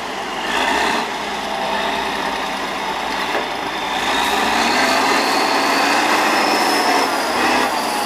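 Diesel engine of an 8x8 Tatra 815 trial truck running under load as the truck crawls through loose sand. A short surge comes about half a second in, and the revs rise around the middle.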